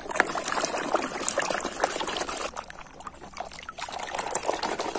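Muddy water sloshing, splashing and trickling in a tub as a hand scrubs a toy bus in it, with many small irregular splashes and drips.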